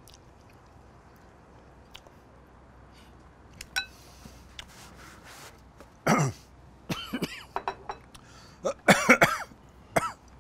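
A man coughing and clearing his throat in a run of short bursts, starting about six seconds in and strongest near the end, from the chili burn of very spicy Korean fire noodles.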